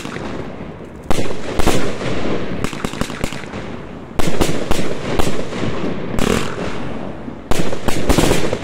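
Compound fireworks cake of 25–30 mm calibre firing shot after shot: a series of sharp bangs, some in quick clusters, each trailing off before the next.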